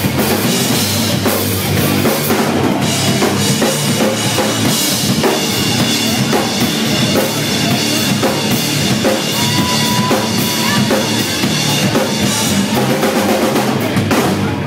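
Live rock band playing loud: a drum kit with bass drum and snare driving the beat under electric guitar and electric bass.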